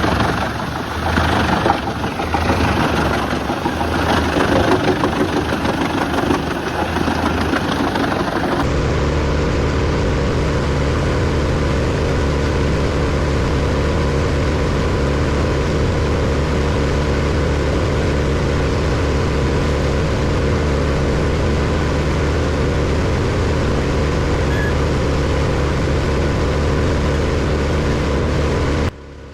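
Wood chipper at work: irregular crunching and knocks over a running engine, then after a sudden change about eight seconds in, a steady heavy engine drone with an unchanging low hum.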